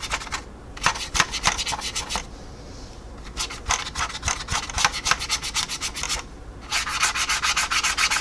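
A blending brush rubbed rapidly back and forth over the plastic surface of a scale model jet, blending oil paint into the panel lines. The quick rubbing strokes come several a second, in about four runs with short pauses between.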